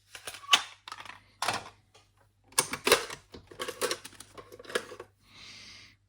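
Hard plastic clicks and clacks of cassette tapes and cases being handled, in irregular bunches, with a short hiss near the end.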